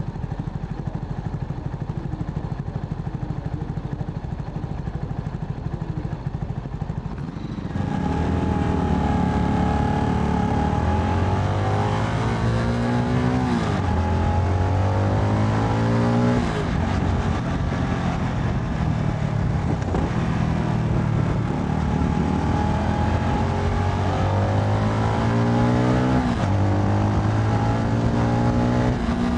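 Motorcycle engine heard from the rider's seat of a CFMoto 300NK: running steadily for the first several seconds, then louder about eight seconds in as the bike pulls away, its pitch climbing and dropping back several times as it accelerates and shifts through the gears.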